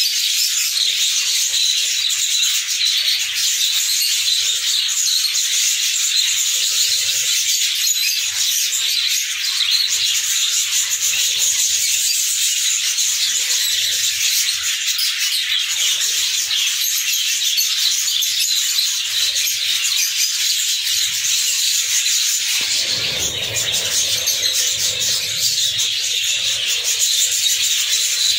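A flock of budgerigars chattering and warbling continuously in a dense, high-pitched chorus. A low rumble joins in for a few seconds late on.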